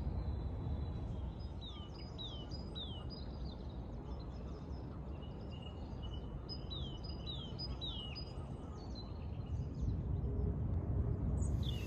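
Outdoor lakeside ambience: a steady low rumble of wind over the microphone, with a small bird calling twice, each time a quick run of three short falling high notes, the runs about five seconds apart.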